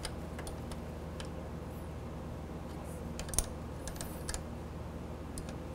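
Light metallic clicks of a wrench tightening a motorcycle clutch cable adjuster lock nut, with one sharper click about three and a half seconds in and a few more soon after, over a steady low hum.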